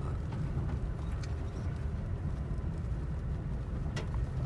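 Pickup truck driving slowly on a dirt trail: a steady low rumble of engine and tyres, with a single short knock about four seconds in.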